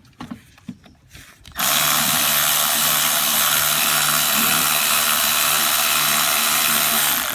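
Power ratchet running steadily for about five and a half seconds, starting about a second and a half in and stopping abruptly, as it backs out a 10 mm bolt holding the coolant hose adapter to the engine. A few light clicks of the socket being fitted come before it.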